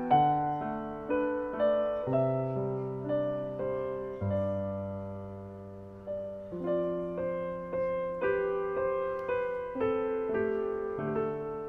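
Background music: slow, gentle solo piano, single notes struck at a calm pace over held low chords.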